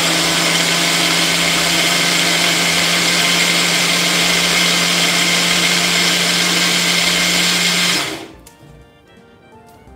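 Bullet-style personal blender running at full speed, churning curd with mint paste and spices into buttermilk. It is a loud, steady motor whir with a low hum, and it switches off about eight seconds in.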